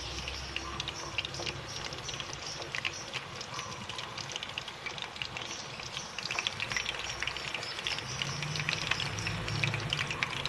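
Coated chicken pieces deep-frying in a pan of hot oil: steady sizzling with many small crackles and pops.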